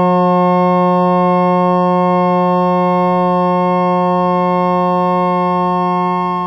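Generated tones at 180, 360, 540, 720, 900 and 1080 cycles per second sounding together as one loud, steady held chord: F sharp, C sharp and A sharp, a perfect three-part F sharp major chord built from the angle sums of the triangle through the octagon.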